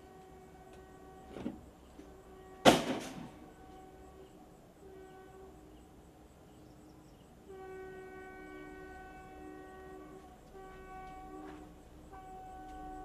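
A small knock, then a sharp heavy blow about a third of the way in, with a short ring after it. A steady horn-like tone sounds in stretches, longer and stronger in the second half.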